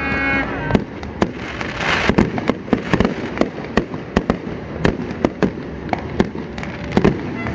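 Fireworks display: many sharp bangs and pops going off in quick, irregular succession, with a crackling burst about two seconds in.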